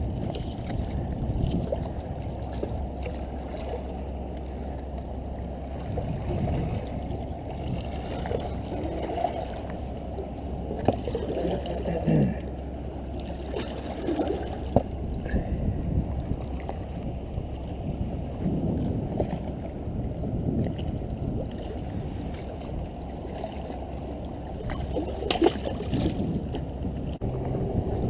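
Steady low rush of seawater washing against jetty rocks, with a few sharp clicks and knocks from handling the fly rod and line.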